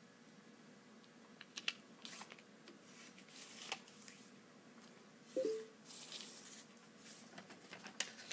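A sheet of vellum paper being folded and smoothed by hand on a wooden tabletop: a series of short, soft paper swishes and rustles, the fullest one a little past halfway.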